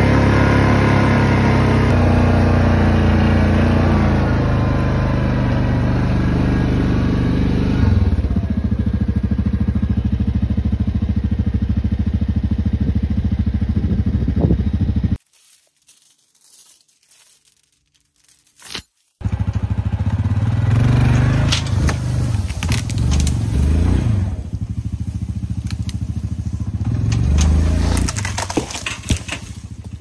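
Yamaha Grizzly ATV's single-cylinder four-stroke engine running as the ATV is driven, its note dropping about eight seconds in. After a short break it returns uneven and varying under load, mixed with cracking and scraping as the chained tree limb is tugged loose and dragged.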